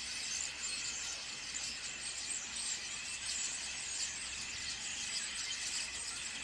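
Flock of common starlings chattering together: a dense, steady chatter of many overlapping clicks and rattles.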